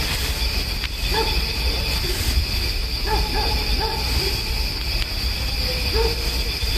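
Short rising-and-falling wailing cries from an unseen animal in the distance, repeating irregularly every half second or so, which the uploader suggests may be a dog. A steady high-pitched drone runs underneath.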